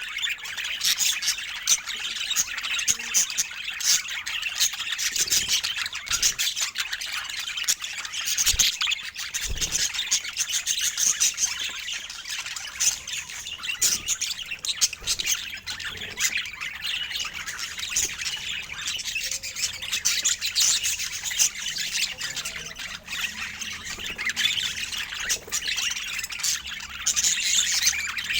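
Budgerigars chattering, chirping and squawking without a pause.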